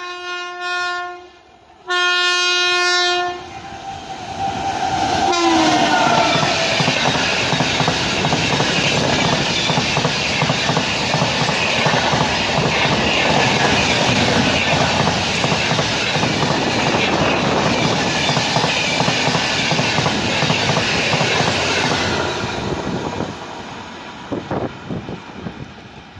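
WAP-7 electric locomotive horn sounding two blasts, each a second or so long, then the locomotive and its coaches passing close by, wheels clattering on the track, fading out over the last few seconds.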